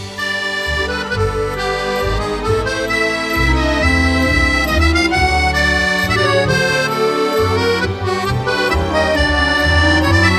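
Background music led by an accordion, playing a melody over a moving bass line.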